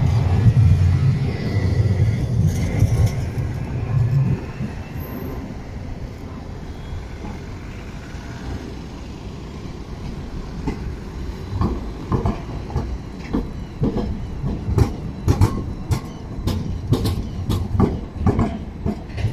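A tram passes close with a low rumble, which fades after about four seconds. From about two-thirds of the way in, another tram's steel wheels clatter over the rail joints and crossings of the junction in a run of sharp knocks, about two to three a second.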